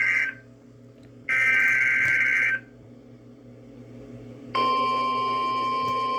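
NOAA Weather Radio alert signalling: a buzzy digital SAME data burst ends just after the start, and a second one about 1.3 s long follows. About four and a half seconds in, the steady single-pitch 1050 Hz warning alarm tone begins and holds, announcing a new warning.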